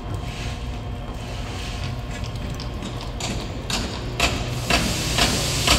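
Steady low rumble of heavy machinery running while an excavator is hoisted out of the pit by crane. In the second half, a run of about six short knocks, roughly two a second.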